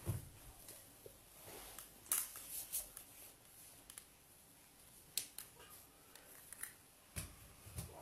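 Faint handling noise: a dozen or so scattered soft clicks and rustles, with a couple of dull low bumps near the start and near the end, as clothing on a plastic hanger is held up and shifted close to the phone.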